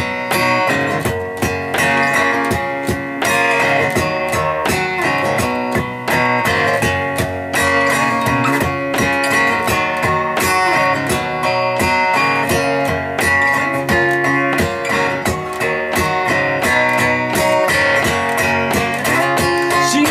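Steel-string acoustic guitar strummed in a steady rhythm, playing an instrumental chord passage with no voice.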